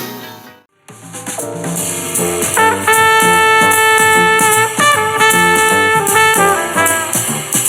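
Music test track played through a small portable Bluetooth speaker. A blues guitar track fades out, there is a short gap, and about a second in a jazz track starts, with a trumpet playing held notes over a steady bass line.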